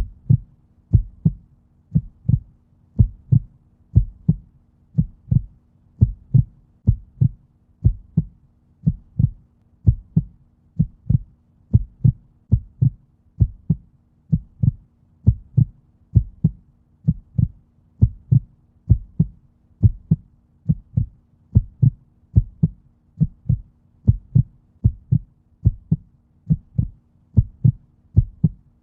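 Heartbeat: steady paired low thuds, lub-dub, about once a second, over a faint steady hum.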